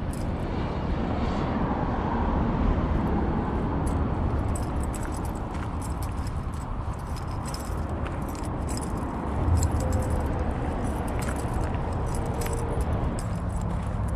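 Steady low rumble of road traffic, with frequent light clicks and jingles close by.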